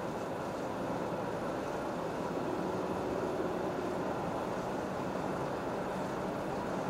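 Steady, unbroken running noise of a vehicle.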